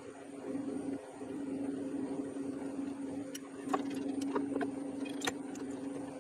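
Metal lathe running with a steady motor and drive hum while a twist drill in the tailstock is fed into the spinning work. The hum dips briefly about a second in, and a few light metallic clicks come between about three and five seconds in.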